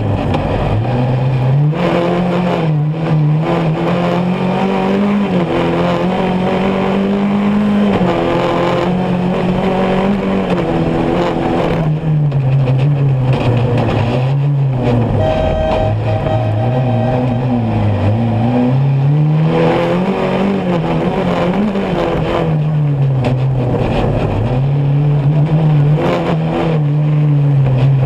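Rally buggy's engine heard from inside the cockpit at racing pace, its pitch climbing under acceleration and dropping back several times, over the steady noise of the car on the dirt track.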